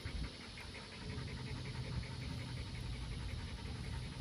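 A dog panting in a fast, steady rhythm.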